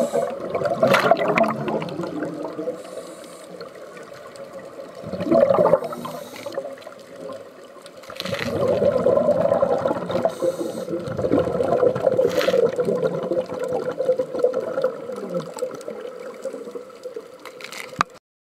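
Scuba diver's regulator breathing heard underwater: rushes of exhaled bubbles come in surges every few seconds over a steady murky hum, with a few sharp clicks. The sound cuts off suddenly just before the end.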